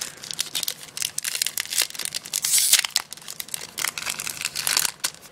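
Foil trading-card booster pack being torn open by hand and its wrapper crinkled, with many quick crackles and one longer, louder rip about halfway through.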